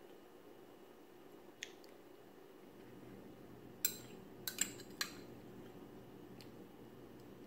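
A metal spoon clinking against a small bowl while eating: one light tap about one and a half seconds in, then four sharper clinks close together between about four and five seconds in.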